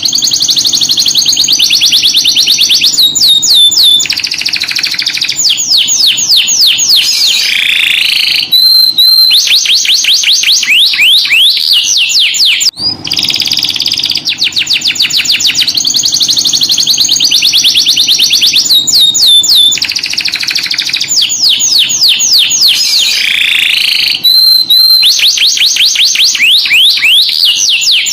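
Domestic canary singing continuously in long rolls and trills of very fast repeated notes, some sweeping down in pitch. The same song passage repeats about every 13 seconds.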